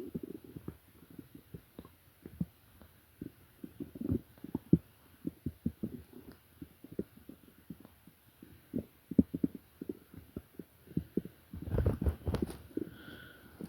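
A person's stomach growling: irregular short gurgles and pops, with a longer, louder rumble about twelve seconds in.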